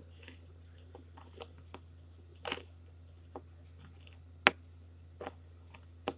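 Silver anklet chain being rubbed dry in a cloth towel: scattered soft rustles and small clicks of the chain links, with one sharp click about halfway through, over a low steady hum.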